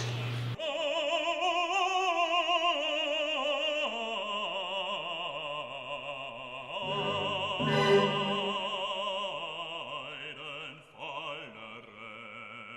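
Background music: an operatic voice singing with heavy vibrato over classical accompaniment.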